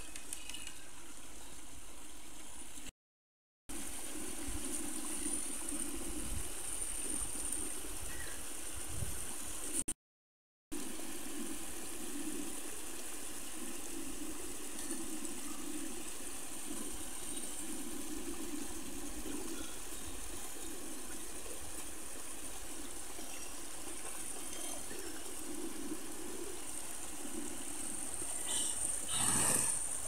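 Shallow stream running over rocks: a steady rush and babble of flowing water, broken twice early on by brief gaps of silence.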